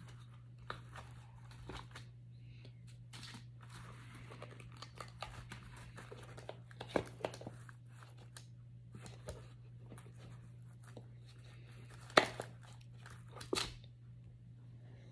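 Scattered crinkling, crunching and tearing as baked aroma-bead car freshies are pulled out of their molds and the baked-on paper is peeled away. A few sharper snaps stand out, the loudest about twelve seconds in.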